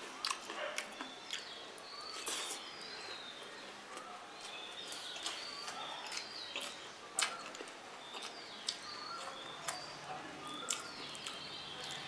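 A person eating rice and egg curry: mouth and chewing noises with repeated short smacks and clicks. Birds chirp in the background.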